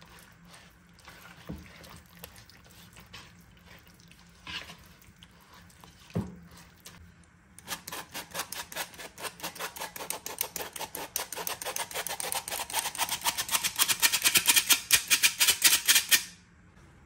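Hand-operated metal flour sifter being worked over a wooden bowl: a rapid, even clicking, several strokes a second, that grows louder over about eight seconds and stops suddenly. Before it, a few faint taps and scrapes of a spatula stirring in the bowl.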